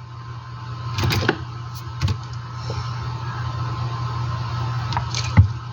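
Steady electrical hum with a faint high whine, broken by a few light clicks and knocks of handling; the loudest knock comes near the end.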